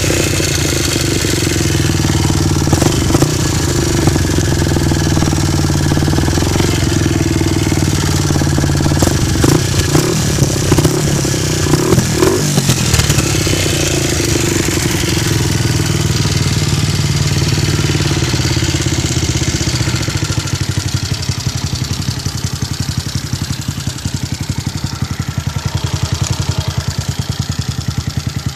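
Honda Sonic 125 motorcycle's single-cylinder four-stroke engine running through its exhaust, with a short rise and fall in revs about twelve seconds in, then settling into an even, pulsing idle.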